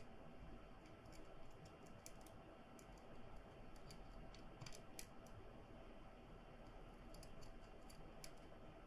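Near silence: room tone with faint, scattered small clicks and ticks.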